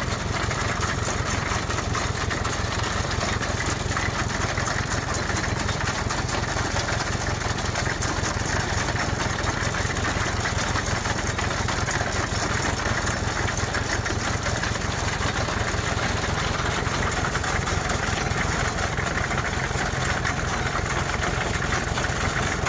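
An engine idling steadily, its firing an even, unchanging beat.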